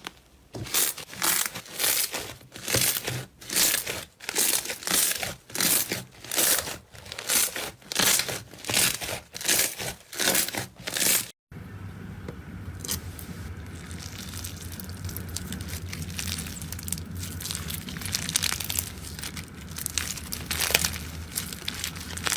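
Slime being squeezed and worked by hand in a steady rhythm, about three crackling squishes every two seconds. Just past halfway it cuts to another slime clip: a soft, steady crackling over a low hum, with a few sharper crackles.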